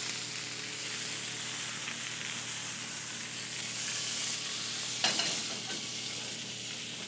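Seared pork loin sizzling in olive oil in a hot stainless steel skillet: a steady frying hiss and crackle that goes on as the pan is carried from the stovetop into the oven.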